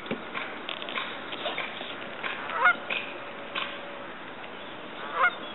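Geese honking on the water: several calls, the two loudest about two and a half seconds and five seconds in.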